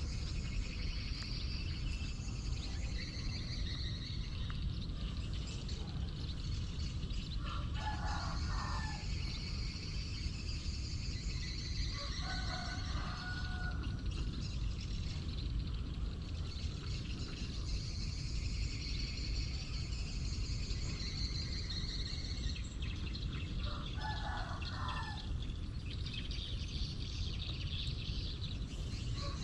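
Roosters crowing a few times in the distance, each crow short, over a steady low rumble of outdoor noise and a high hiss.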